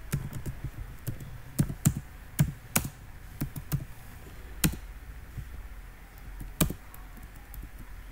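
Computer keyboard typing: irregular keystrokes, a quick run of clicks from about one and a half to three seconds in, then single strokes spaced out.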